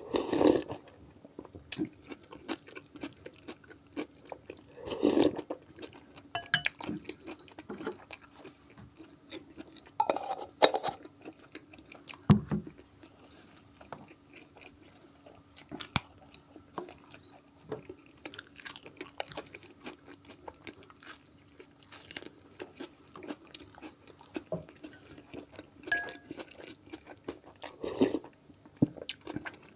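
Close-up eating sounds: spoonfuls of okroshka, a cold chopped-vegetable soup, taken into the mouth with a few louder slurps, then chewing and crunching, together with bites of a fresh dill sprig.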